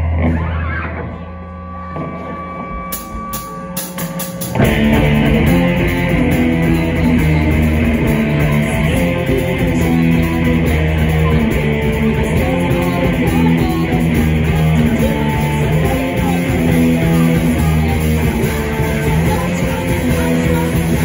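Live rock band playing an instrumental intro: a quieter electric guitar opening, then about four and a half seconds in the drums and guitars come in together and carry on loud and steady, with no singing yet.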